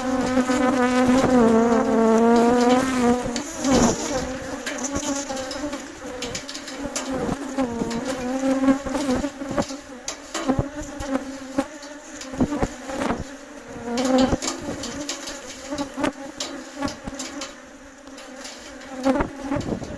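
Bees buzzing: one buzz close and loud for the first three seconds, then several bees overlapping and shifting in pitch, with scattered short clicks.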